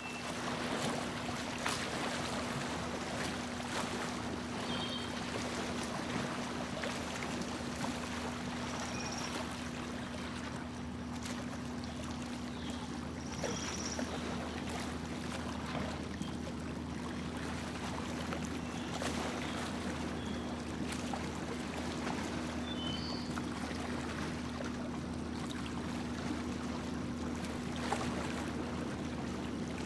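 A small boat's motor running with a steady hum, and water splashing and rushing along the hull as the boat moves across the lake.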